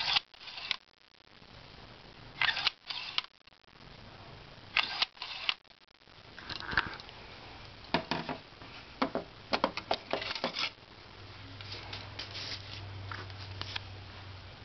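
1940s View-Master stereo viewer's lever being pressed and let go, advancing the picture reel: sharp mechanical clicks in pairs about half a second apart, repeated several times, then a quicker run of clicks. A low hum comes in over the last few seconds.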